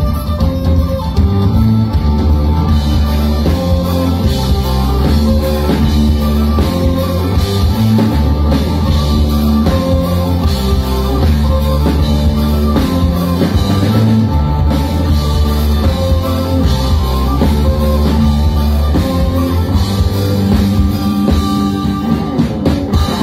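Folk-punk band playing live, an instrumental passage with fiddle and guitars over electric bass and a driving drum kit, loud and bass-heavy.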